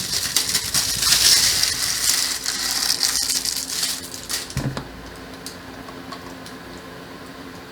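Plastic wrapping crinkling and tearing as it is pulled off a plastic-cased hex key set, with a thump about four and a half seconds in. After that only a low steady hum remains.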